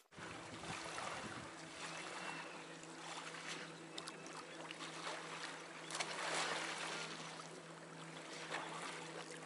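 Kayak paddle strokes and water splashing and lapping close around a plastic kayak's hull, with a steady low hum underneath. The loudest splash comes about six seconds in.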